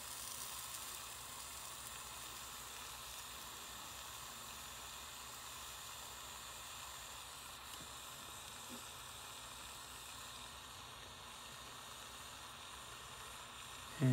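Small jeweler's gas torch with a fine blue flame hissing steadily as it heats a 14k yellow gold part before the hard solder flows.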